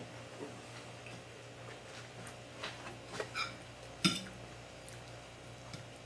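Metal fork scraping and clicking on a ceramic plate while cutting through a breaded veal schnitzel: a few faint scrapes around the middle and one sharper clink about four seconds in.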